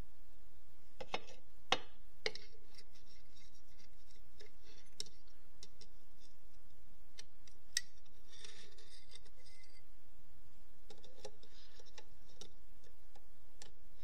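Metal hand tools clicking and scraping against the steel parts inside a manual transmission case: a few sharp clinks, then two short stretches of scraping.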